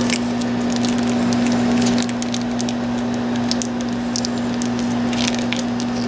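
Foil pouch of cheese sauce crinkling and crackling as it is squeezed out over cooked macaroni, in many short irregular crackles, over a steady low hum.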